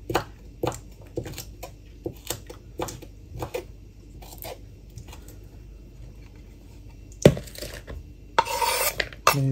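Kitchen knife chopping green onions on a bamboo cutting board, sharp knocks about twice a second that trail off about halfway through. Near the end a heavier knock, then a brief scraping rush as the chopped onion is slid off the board into a plastic bowl.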